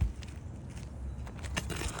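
Work on asphalt roof shingles: a single thump right at the start, then a run of clicks and scrapes of tool and shingle building up near the end.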